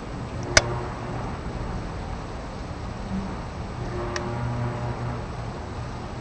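An unidentified low, wavering hum over steady background noise: one of the 2012 'strange sounds' that the recordist could not place. A sharp click comes about half a second in, and a fainter one about four seconds in.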